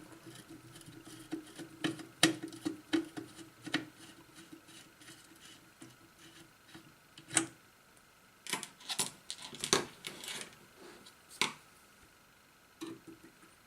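Hands working on a small electronics unit with tools during disassembly: scattered sharp clicks and light taps of plastic and small metal parts, with a busier run of clicking rattles about nine seconds in, over a faint steady hum.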